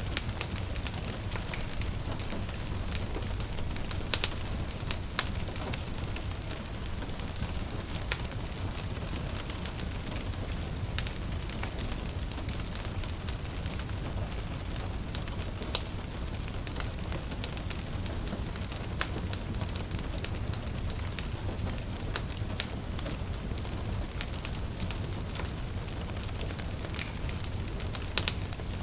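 Wood fire crackling and popping in a fireplace, with many sharp pops scattered over a steady low rumble, and the patter of gentle rain mixed in.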